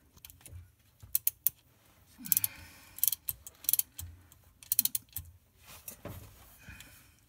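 Ratchet wrench clicking in short runs of sharp clicks on its back-swings as the 14 mm hex plug is tightened into a Mercedes C300's rear differential.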